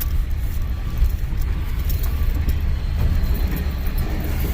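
Pickup truck driving, heard as a steady low rumble of engine and road noise.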